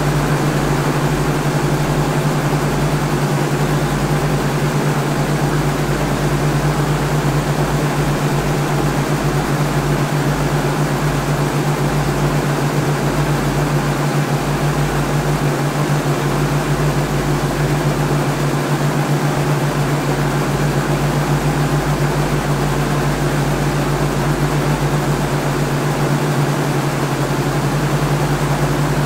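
Helicopter cabin interior: a steady, loud drone of engine and rotor, a strong low hum over a broad rushing noise, unchanging throughout.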